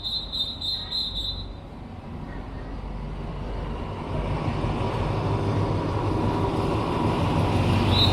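Train approaching on the tracks, a low rumble that grows steadily louder. A rapid high-pitched beeping sounds over it during the first second and a half.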